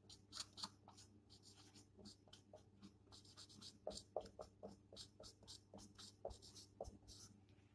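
Dry-erase marker writing on a whiteboard: a faint run of short, quick strokes, letter after letter.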